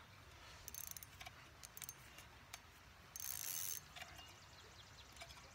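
Lew's Mach Smash spinning reel cranking in a small hooked bass: faint scattered mechanical clicks and ticks, with a brief rustling hiss about three seconds in.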